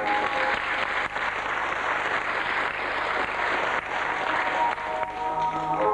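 Audience applauding over backing music. Near the end the applause fades and the music's tones come back up.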